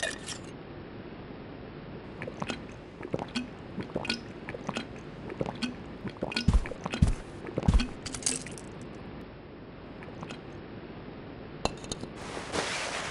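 Wine bottle and glasses being handled: scattered small clicks and clinks, with a few low gulps from drinking straight from the bottle about six to eight seconds in.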